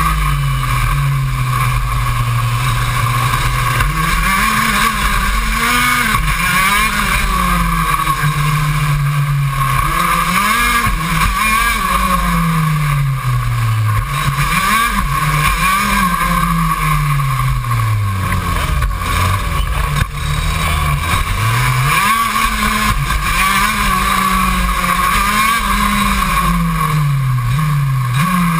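KZ2 kart's 125 cc two-stroke shifter engine at racing speed, heard onboard. Its pitch climbs and drops over and over as the kart accelerates, shifts and slows for corners.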